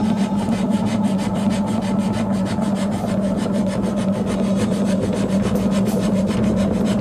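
Sandpaper, 100 grit, rubbed by hand over the metal bell housing of a 1982 Royal Model 880 upright vacuum in quick, even back-and-forth strokes, sanding out deep scratches. A steady low hum runs underneath.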